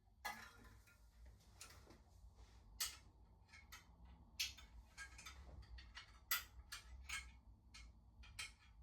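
Scattered light clicks and taps, about a dozen at irregular intervals, from tools and e-bike parts being handled during assembly.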